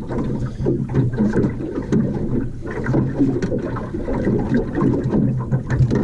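Small boat's motor running steadily, with water and wind noise around it.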